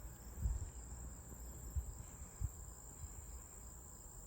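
Steady high-pitched insect chorus, an unbroken trill, with a few soft low bumps.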